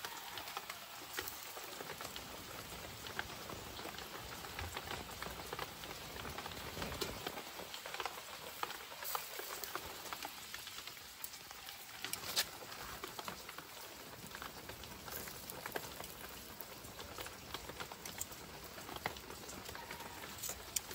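Wood fire crackling beneath pig's liver grilling on a wire rack: a steady sizzling hiss with scattered sharp pops.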